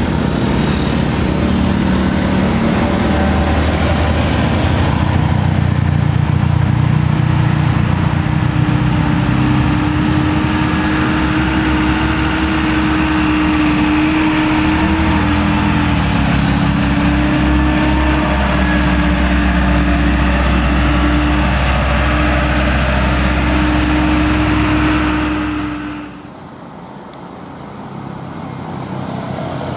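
Loaded Isuzu Elf diesel light truck's engine pulling steadily up a grade, a low rumble with a steady tone above it. About 26 seconds in it cuts off abruptly to a quieter engine sound.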